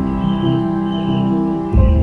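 Instrumental background music with held, calm notes and a deep bass note swelling in near the end.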